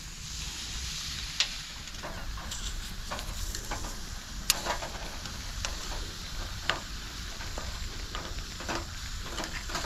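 Shellfish (abalone, turban shell and clams) sizzling on a barbecue grill over coconut-shell charcoal: a steady hiss with many small crackles and sharp pops, the loudest about one and a half, four and a half and six and a half seconds in.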